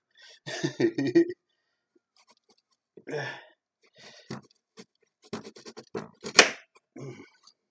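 Kitchen knife scraping and shaving the skin off a carrot in a run of short strokes, thickest in the second half, with one sharp click about six seconds in.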